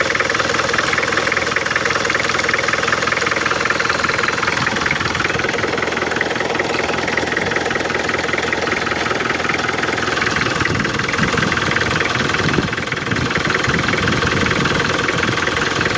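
Mitsubishi 4D56 four-cylinder diesel engine running, steady throughout, with a brief dip in loudness about three-quarters of the way through.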